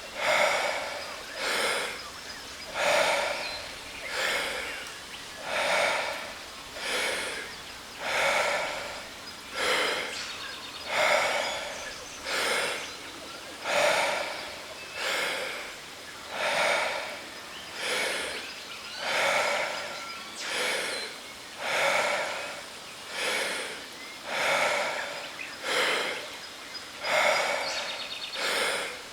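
A person doing Wim Hof power breathing: deep, rhythmic inhales and exhales, about one full breath every three seconds, held at an even pace. Underneath runs the steady rush of a jungle waterfall.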